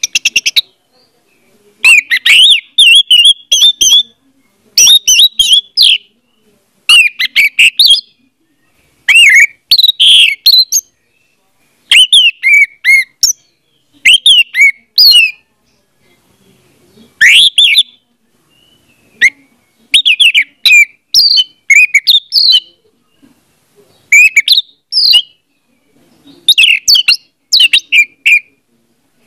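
Orange-headed thrush (anis merah) singing: a run of short phrases of quick, varied whistled notes, each a second or two long, with pauses of about a second between them.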